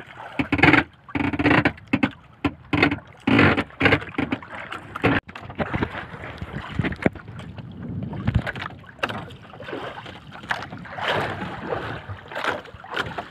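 Water slapping and washing against the hull of a small wooden outrigger boat at sea. A quick run of sharp knocks and bumps comes through the first five seconds.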